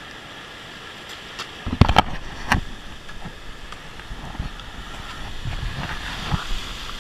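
Ocean surf washing around a rock, with wind buffeting the microphone in low rumbles from about two seconds in. A few sharp knocks come around the same time.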